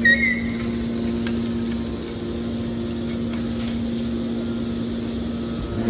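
Metal baler compactor's hydraulic power unit running with a steady hum, with a short high squeal right at the start and a few faint clicks.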